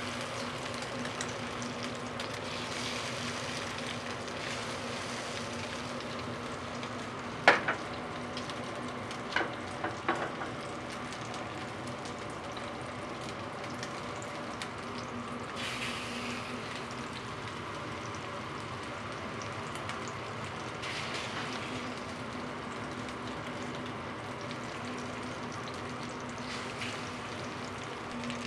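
Korean pancakes (jeon) frying in oil with a steady sizzle over a low hum. A few sharp knocks come about seven to ten seconds in.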